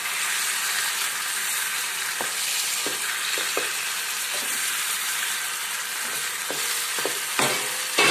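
Chicken leg pieces sizzling in a thick masala in a nonstick frying pan while a spatula stirs through them, with short scrapes and taps of the spatula against the pan now and then and a couple of louder knocks near the end.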